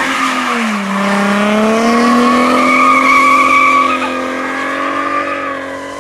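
Slalom car's engine held at high revs as the car slides through a turn with wheelspin and tyre squeal. The note dips briefly about a second in, then holds steady, and fades over the last couple of seconds as the car pulls away.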